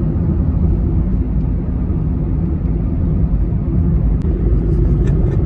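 Steady low rumble of a moving car's engine and tyres heard from inside the cabin.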